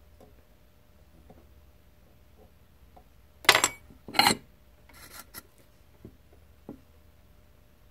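Tools being handled on a soldering bench: two short scraping sounds about a second apart near the middle, as the tweezers are laid on the paper and the soldering iron is taken from its stand. Fainter rustles and a small click follow.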